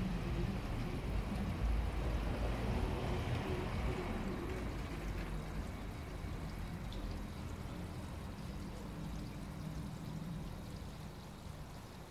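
Water running and trickling steadily into a garden koi pond, with a low rumble underneath that fades after about six seconds.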